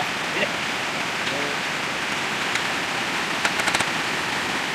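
Steady rush of flowing water, as from the stream or channel that drives a small water-wheel generator. About three and a half seconds in, a quick run of sharp clicks cuts through it.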